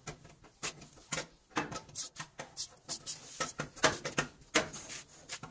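Aerosol penetrating lubricant sprayed through its straw onto a truck's tie rod end and drag link joints in a run of short hissing spurts, with sharp clicks and taps mixed in.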